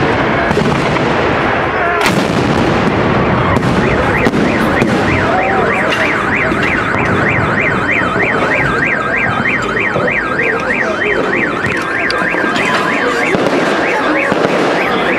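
A car alarm warbling rapidly up and down over steady background noise, with a sharp bang about two seconds in.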